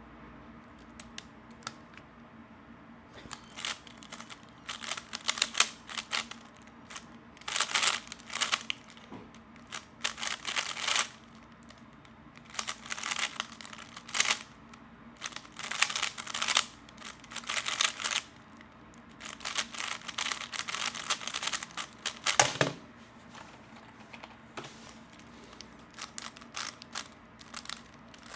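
A 3x3 Rubik's Cube being turned fast during a speedsolve: quick runs of plastic clicking and clacking, in bursts of about a second, starting about three seconds in. One heavier knock about twenty-two seconds in, then only a few scattered clicks.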